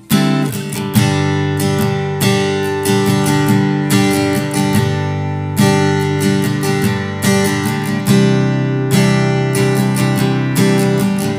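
HEX STING F300CE G acoustic-electric guitar (solid Sitka spruce top, sapele back and sides) being strummed, with chords ringing between repeated strokes.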